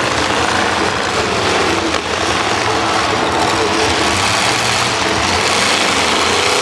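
Many demolition derby cars' engines running and revving together in a loud, steady din.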